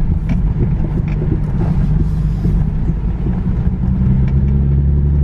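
Infiniti G37S driving slowly, heard from inside the cabin: low road-and-exhaust rumble with a thumping from the driver's-side wheel, which the owner takes for a bad wheel bearing. Near the end the engine note becomes a steadier drone.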